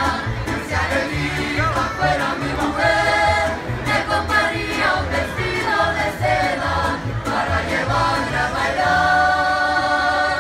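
Mariachi ensemble singing together in chorus, backed by violins, guitars and a guitarrón, whose bass line moves under the long held sung notes.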